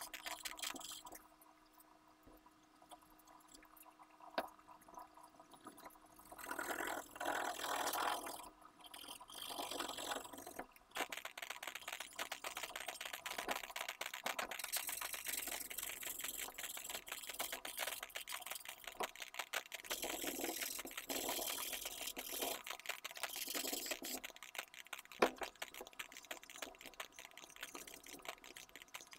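Pencil and paper blending stump rubbing and scratching on drawing paper in quick shading strokes. The strokes are quieter for the first few seconds and louder from about six seconds in.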